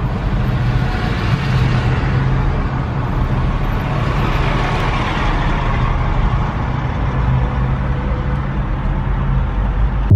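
Steady car engine and road noise, heard from inside a moving car.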